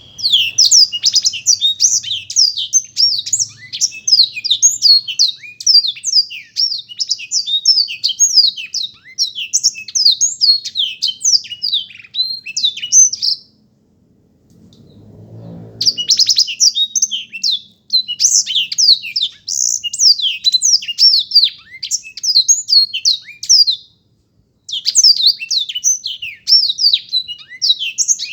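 Black-throated canary (blektroat) singing a long, fast twittering song of rapid high notes, in long phrases broken by short pauses about 13 s and 24 s in. A brief low muffled noise sounds during the first pause.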